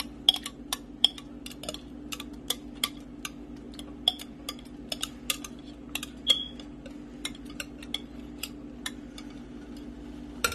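Irregular light clicks and taps of a bowl and utensil against a stainless steel pot while thick yogurt is poured and scraped in, over a steady low hum.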